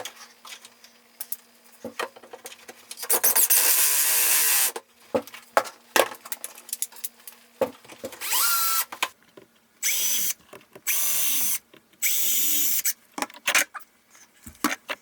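Cordless drill/driver running in short bursts, five runs of a few seconds or less, one rising in pitch, as it drives screws, with small clicks and knocks of handling between the runs.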